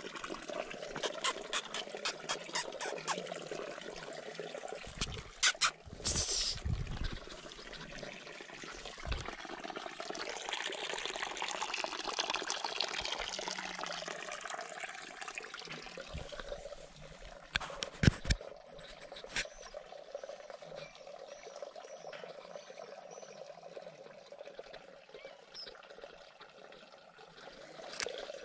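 Water trickling and splashing at a small garden pond, with sharp knocks and rustles from the camera being moved, the loudest a little past halfway. Faint high chirps come in during the quieter last third.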